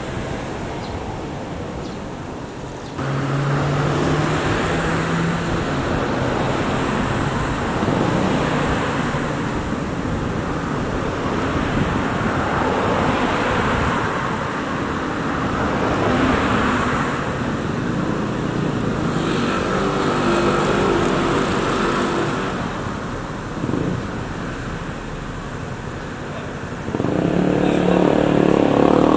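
Street traffic noise: vehicles driving past on the road, with a louder pitched engine coming in near the end.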